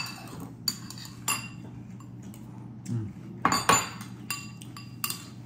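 Metal spoons clinking and scraping in cereal bowls as two people eat: irregular sharp clinks, several with a brief ring, the loudest a pair about three and a half seconds in.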